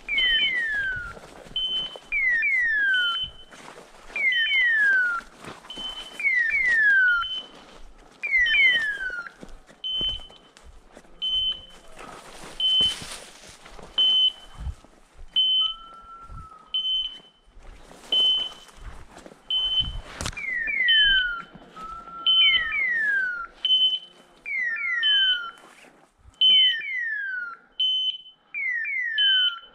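A hunting dog's electronic beeper collar sounding a short steady beep about once a second, with pairs of falling chirps between the beeps for much of the time, over crackling of brush and leaves underfoot.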